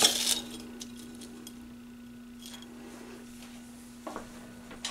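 A knife crunching through the crisp fried batter crust of a banana fritter on a china plate, the cut finishing about half a second in. After that only a steady low hum remains, with a few faint clicks and a light click near the end.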